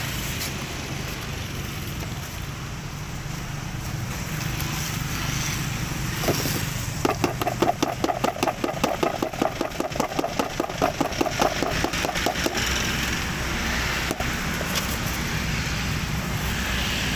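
Steady hum of passing street traffic. For several seconds midway it is overlaid by a fast rattle of about six knocks a second, from cut crystal guava pieces being shaken with powdered seasoning in a plastic tub.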